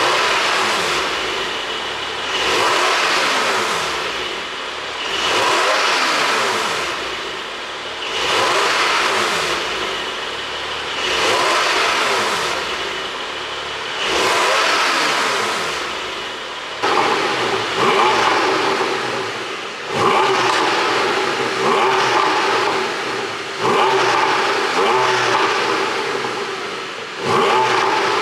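Porsche 718 Boxster GTS 4.0's flat-six engine, running a pop-and-crackle ECU tune, revved again and again: slower rises and falls about every three seconds at first, then sharper, quicker throttle blips after about seventeen seconds.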